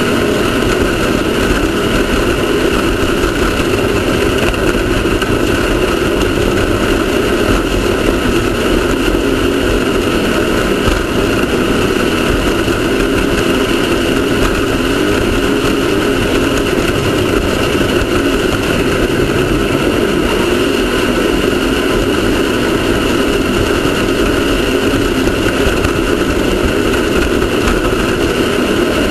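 Off-road race car engine running steadily under way, a loud, even drone with no change in pitch.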